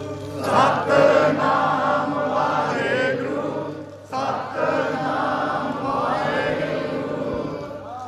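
Sikh devotional hymn singing (kirtan): several voices chanting together in two long phrases with a short break about four seconds in, over a steady held drone.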